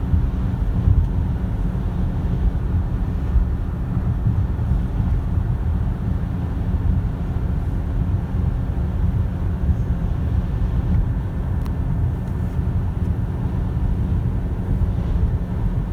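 Steady low rumble of a car driving, heard from inside the cabin: road and engine noise, with a faint steady hum.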